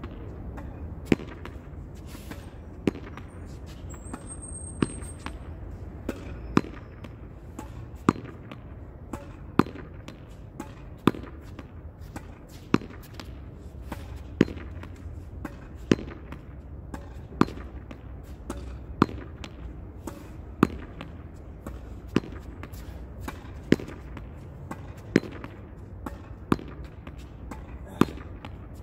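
A ball being hit against a wall over and over in a steady rally: a sharp hit about every second and a half, with fainter knocks in between, over a low steady rumble.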